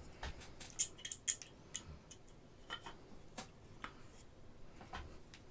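Light clicks and taps of hard resin model-kit parts being handled: a quick run of them in the first two seconds, then scattered single ones.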